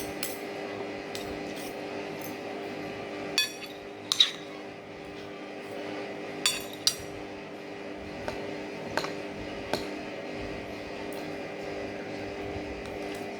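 Cutlery clinking against a plate or dish while eating: about six short clinks, the sharpest about four seconds in, over a steady low hum.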